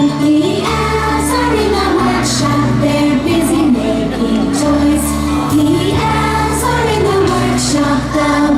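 A Christmas song with a steady beat, bass and singing voices over it.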